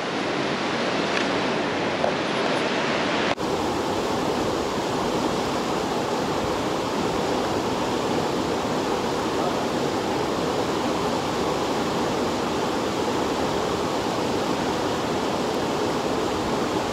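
Steady rush of the Silver Fork of the American River flowing through a granite canyon, with a brief click about three seconds in, after which the rush carries on unchanged.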